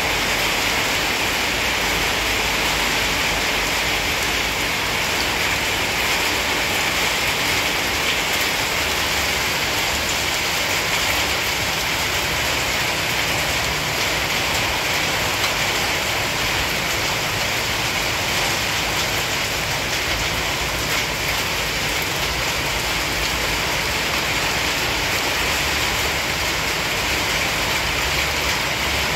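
A steady, even hiss of rain that does not change in level.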